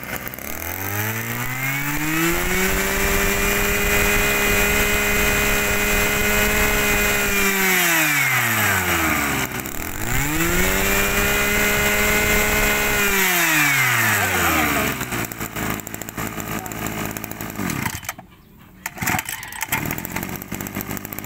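Mitsubishi TL261 brush cutter's small two-stroke engine revved up twice from idle: it climbs to high speed and holds about five seconds, falls back, climbs and holds again for about three seconds, then settles back to a rougher idle.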